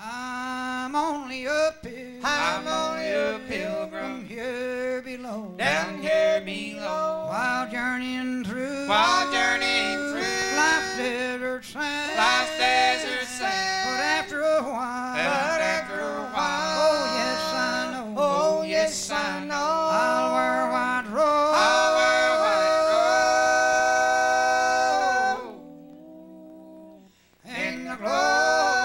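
Acoustic bluegrass band (banjo, guitar, fiddle, upright bass) playing an instrumental break in a gospel song, a sliding lead melody over the rhythm. The break ends on a long held note, then the sound drops away briefly before the band comes back in.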